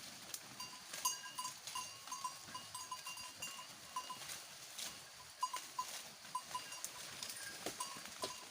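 A small bell on a grazing goat clinking irregularly at one steady pitch as the animal moves, with faint rustling and light knocks around it.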